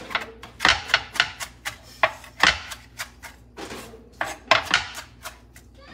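A kitchen knife chopping pechay (bok choy greens) on a wooden cutting board: a quick, uneven run of knocks of the blade against the board, some strokes much louder than others.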